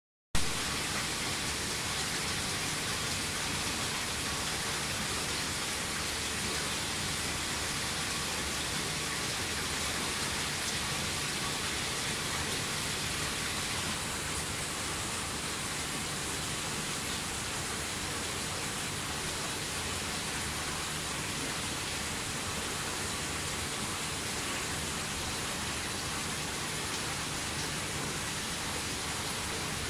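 Steady, even rush of water from an aquarium's circulation and filtration, with no distinct events.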